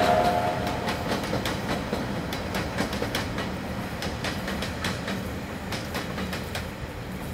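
Freight wagons of a steam-hauled coal train rolling over a bridge, their wheels clicking irregularly over the rail joints and fading as the train draws away. The locomotive's steam whistle dies away within the first second.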